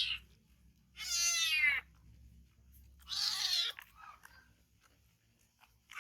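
Kitten meowing: two short, high calls about two seconds apart, with another starting at the very end.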